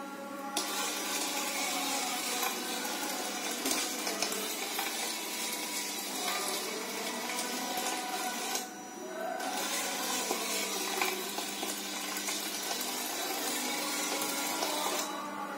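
Small line-following robot's drive motors running with a steady whir. The whir cuts out for under a second about nine seconds in, when a foot is put in front of the robot and its range sensor halts it.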